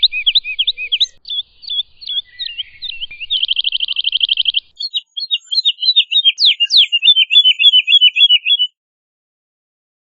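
Woodlark singing: runs of repeated whistled notes, with a fast, even trill about three seconds in, followed by another run of separate notes that stops about a second before the end.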